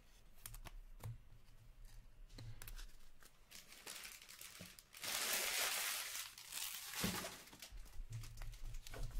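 A trading-card pack's foil wrapper crinkling and tearing, loudest in a two-second burst about halfway through. Around it are light clicks and rustles of cards being handled.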